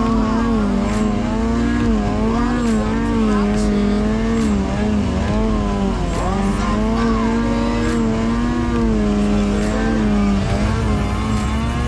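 Snowmobile engine running hard while the sled ploughs through deep powder, its pitch rising and falling again and again as the throttle is worked.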